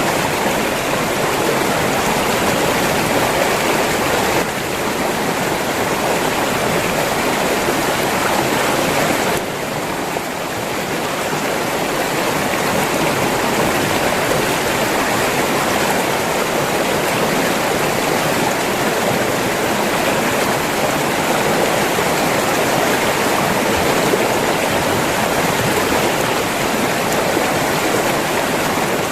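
River water rushing and splashing in a steady, even stream, with brief slight drops in loudness about four and a half and nine and a half seconds in.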